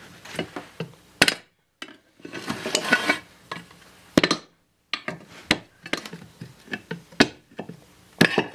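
Long flat-blade screwdriver prying out the old crankshaft oil seal of a 10 HP Briggs and Stratton engine's sump cover: metal scraping and sharp clicks as the blade catches and levers the seal's metal case, with a longer scraping stretch about two to three seconds in.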